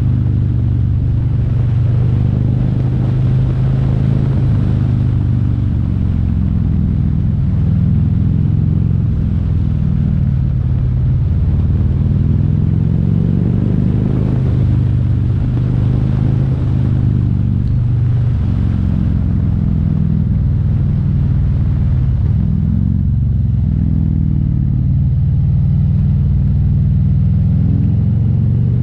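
Harley-Davidson CVO's V-twin engine running steadily under way, its pitch shifting a little up and down with the throttle, over a hiss of wind and road noise.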